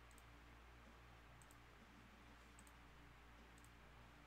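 Four faint computer mouse button clicks, about a second apart, from the randomizer's button being clicked repeatedly. The owner says this mouse isn't clicking like it normally clicks.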